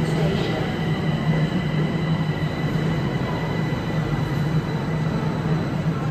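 Subway train pulling into the station behind platform screen doors: a loud, steady rumble of wheels and running gear, with thin high tones held over it.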